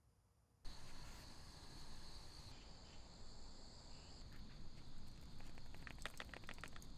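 Insects chirring in a steady, high, even drone that cuts in suddenly about half a second in. From about halfway, a run of quick light footsteps on a path.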